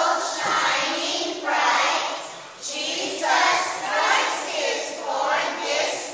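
A group of young children singing together as a choir, in phrases about a second long.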